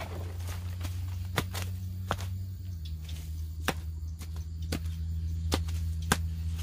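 Digging tool striking repeatedly into soil and roots while digging out a banana sucker: sharp chops about every half second to second, over a steady low hum.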